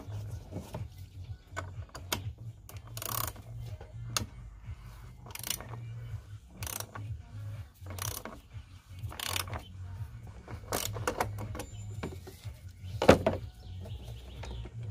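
Ratchet wrench with a 36mm socket working the oil filter housing cap loose on a Ford Focus ST225: short bursts of ratchet clicking about once a second as the handle is swung back and forth, with one louder knock near the end. A low hum runs underneath.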